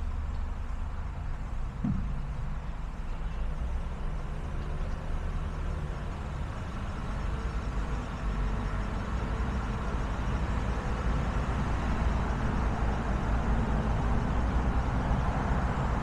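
Car driving on a city street: steady low engine and tyre rumble, with road noise growing louder over the second half. A short knock about two seconds in.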